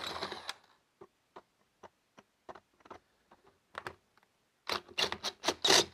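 Hilti SF 6H-A22 cordless hammer drill dying away about half a second in. Scattered light clicks and scrapes follow from the drill and its masonry bit in the concrete block, ending in a short cluster of louder clicks and scraping.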